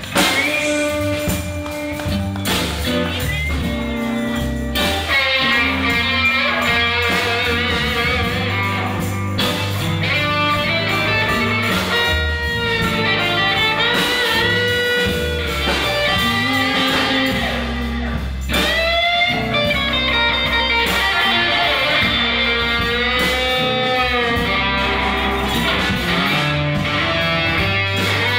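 Live rock band playing an instrumental passage: an electric guitar lead with bent, wavering notes over bass and drums.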